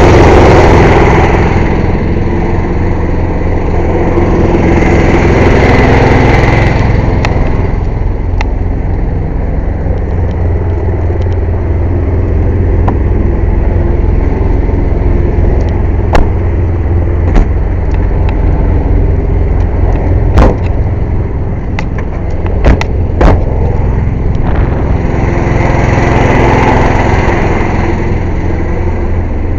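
Air compressor running with a steady low drone. Louder swells of noise come near the start, about five seconds in and again near the end, and a handful of sharp knocks fall in the middle.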